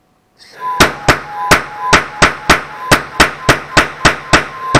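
Small propane noise cannon firing repeatedly, about three sharp bangs a second, with its gas fed at 60 psi. A brief hiss about half a second in comes just before the first bang, and a faint steady whistle runs under the shots.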